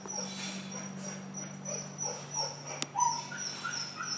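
Small dogs whimpering. Short, high, rising whines come several times a second from about three seconds in, over a steady low hum.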